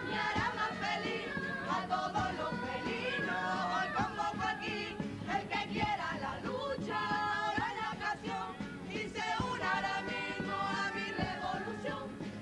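A Cádiz carnival comparsa playing: a group of voices in chorus over Spanish guitars, with a drum beat underneath.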